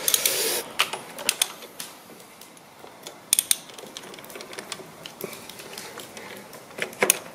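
Scattered metallic clicks and taps of a ratchet and 24mm socket being worked down over an idle control valve, coming in small clusters near the start, a little past the middle and near the end.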